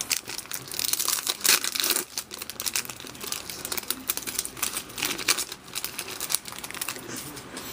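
Foil wrapper of an Upper Deck SP Authentic hockey card pack crinkling and tearing as it is opened by hand, then the cards slid out. The crackling is loudest in the first couple of seconds.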